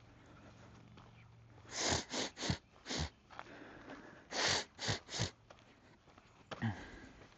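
Two quick runs of sharp, close sniffs, four and then three, a second or so apart.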